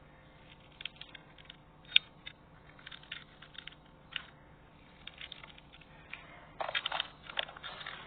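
Slime being played with, giving scattered small sticky clicks and pops, then a denser, louder run of crackling about six and a half seconds in.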